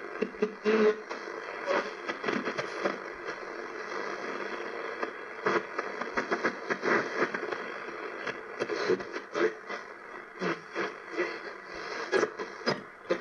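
Nordmende Phonosuper valve radio's loudspeaker giving hiss and crackling static as it is tuned between stations on the AM bands, with clicks and brief scraps of signal.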